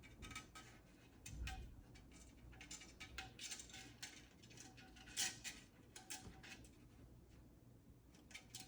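Roomba robot vacuum moving and bumping in a tight spot: faint irregular clicks and clinks over a low steady hum, with a louder knock about a second and a half in and another about five seconds in.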